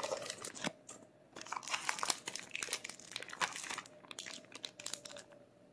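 Plastic food packaging crinkling and rustling in irregular bursts as sliced red onions are emptied from their bag into a bowl. There is a short lull about a second in, and it dies down near the end.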